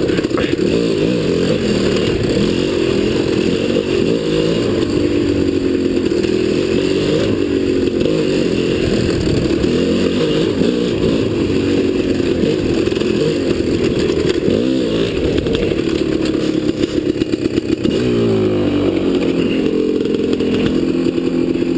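Dirt bike engine running as the bike is ridden along a wooded trail, its pitch rising and falling with the throttle. About eighteen seconds in it drops and settles to a steadier, lower note.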